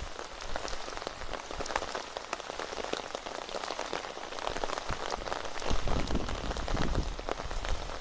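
Steady rain falling, with a dense patter of individual drops striking close by.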